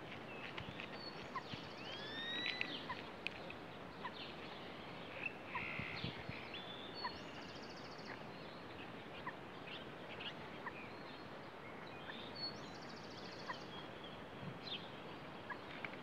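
Faint outdoor ambience: scattered bird chirps and calls, including a few short buzzy trills and one gliding call, over a steady background hiss.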